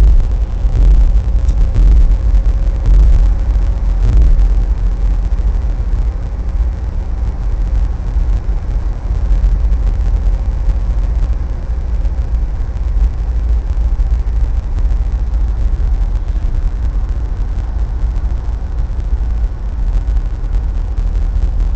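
Low, steady rumble of tyres and engine from a car driving along a highway, louder and more uneven for the first few seconds.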